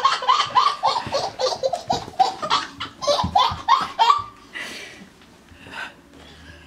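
A baby laughing in a quick run of high-pitched belly laughs, about three a second, stopping about four seconds in.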